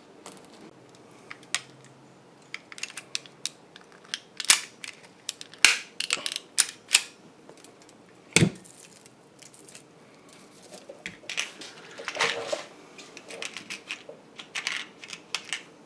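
Irregular clicks, taps and clinks from small metal parts and wires being handled and worked at a bench, with a heavier knock about halfway through.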